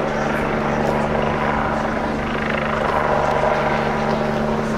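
A helicopter in flight, its engine and rotor making a steady, unchanging hum.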